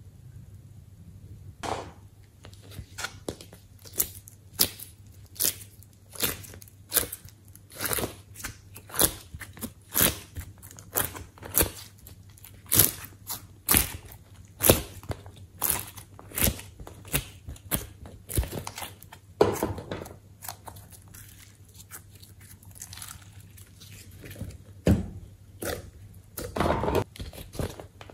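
Crunchy cracks and pops, roughly one or two a second, as set colored clay cubes are pressed and popped out of a plastic ice-cube tray mold. There are a couple of longer crunching squeezes in the second half.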